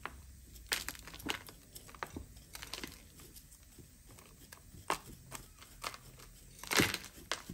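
A thin metal pick scraping and crunching through a ficus root ball, loosening old, partly clay-like soil. Irregular scratches and clicks, the loudest a short burst near the end.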